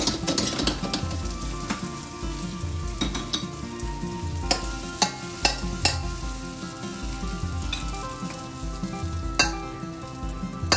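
Rice vermicelli and salmon skin sizzling in a stainless steel frying pan while a metal spatula stirs and scrapes them out, with sharp clinks of the spatula against the pan several times, the loudest about nine seconds in.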